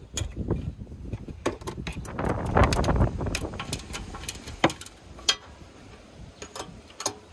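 Hand tools working a metal band clamp on a jet-ski engine: scattered metallic clicks and clinks, with a louder stretch of rattling and scraping about two to three seconds in.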